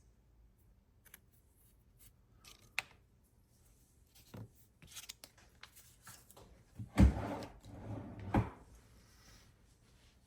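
Handling noise from small parts being worked by hand: scattered light clicks and rubbing, with two louder knocks about a second and a half apart past the middle.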